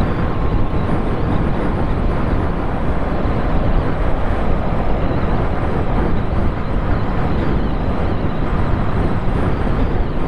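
Steady wind rush over the microphone of a motorcycle at highway speed, about 100 km/h into a headwind, with the Triumph Bonneville T100's engine and road noise underneath.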